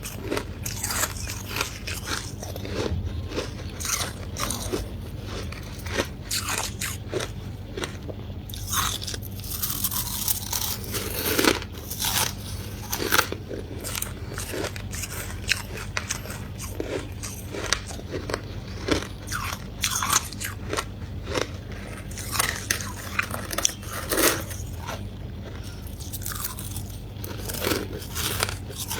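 Close-miked biting and chewing of ice and freezer frost: repeated irregular crunches and crackles of ice breaking between the teeth.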